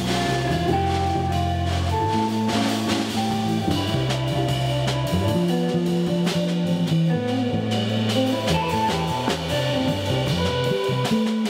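Band music with a drum kit, a moving bass line and electric guitar.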